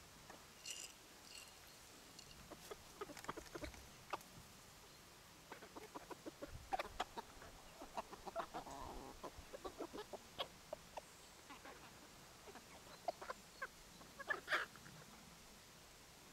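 German bush chickens (Deutsches Buschhuhn), a bantam breed, clucking quietly as they forage, in short scattered clucks with a louder call near the end.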